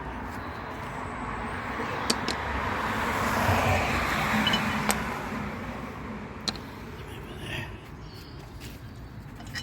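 A car passing on the road: tyre and engine noise swells to a peak midway and fades away. A few sharp metallic clicks sound over it.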